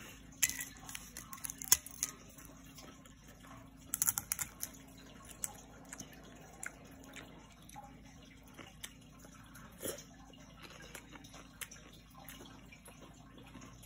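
Eating by hand from a plate of rice: scattered crisp crackles and crunches of papad being broken and eaten, in small clusters about half a second, four seconds and ten seconds in, with soft fingertip clicks against the plate between them.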